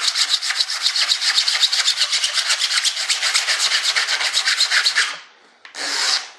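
Single-edge razor blade held upright and scraped quickly back and forth over cured fibreglass resin, in rapid, even strokes. It shaves the hardened resin coat down to a smooth surface, taking it off as a flaky powder rather than cutting into the cloth as sanding would. The scraping stops about five seconds in, then one more stroke comes near the end.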